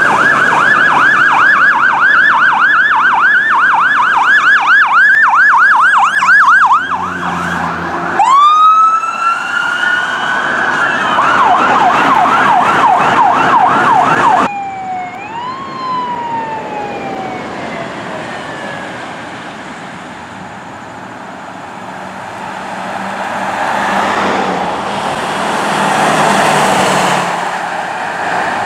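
Electronic sirens on responding fire-rescue trucks: a fast yelp warbling about three times a second, with a brief low horn near the end of it. After a cut, a siren winds up into a wail and then a yelp, and after another cut about halfway through, a siren winds down. Then traffic noise, swelling as a vehicle passes near the end.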